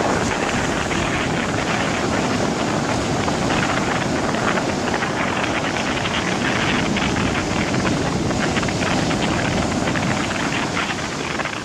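Storm wind blowing hard across the microphone over heavy surf, with big waves breaking and spraying over a harbour breakwater. The noise stays loud and steady, with no single crash standing out.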